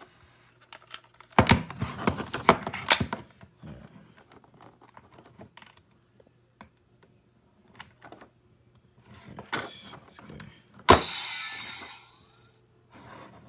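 Plastic and die-cast toy Morpher being handled: a quick run of sharp clicks as its buttons and coin are worked, scattered lighter clicks, then a loud snap near the end as it clicks open, followed by a short ragged sound lasting about a second and a half.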